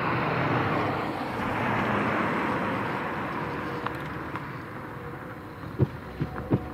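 A car drives past and away, its tyre and road noise swelling and then fading. Near the end its tyres thump over the rails of a railroad crossing in a quick run of sharp knocks.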